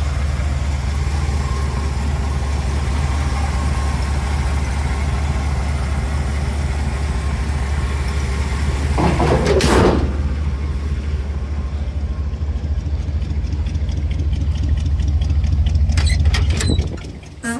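Chevy 350 small-block V8 idling with a steady low rumble, with a brief louder rushing noise about nine seconds in and a few clicks near the end, just before the engine cuts off.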